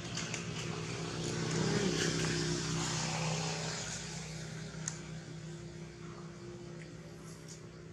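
A motor vehicle's engine running steadily, swelling louder about a second and a half in and slowly fading away, with one sharp click about five seconds in.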